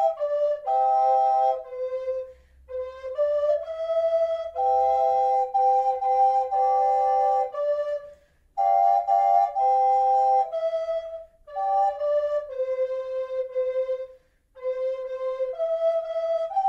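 Flute-family wind instruments playing a slow melody in two-part harmony, held notes moving together, with brief pauses between phrases about eight and fourteen seconds in.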